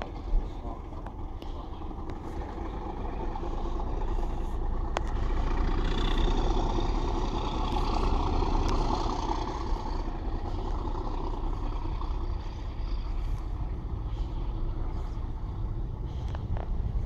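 Rumble of a train on the line, swelling over several seconds to a peak near the middle and then easing off a little, with wind buffeting the microphone.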